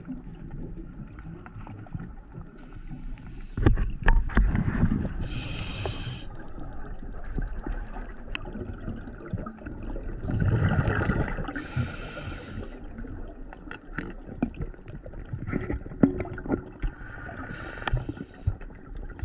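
Scuba diver breathing through a regulator underwater: three hissing inhalations about six seconds apart, two of them just after a rumbling burst of exhaled bubbles, with scattered small clicks in between.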